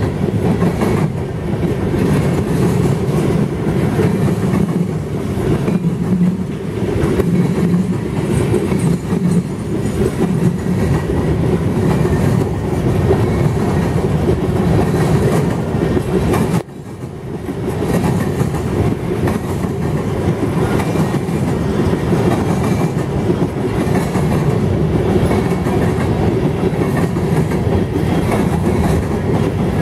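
Freight cars of a passing mixed freight train rolling by close at hand: a steady heavy rumble of wheels on rail with repeated clicking over the rail joints. The sound dips for a moment a little after halfway.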